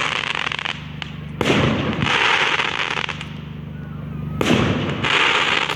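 Fireworks going off: two sharp bangs, about a second and a half in and again near the end, each followed by a second or two of crackling hiss from the bursting shells.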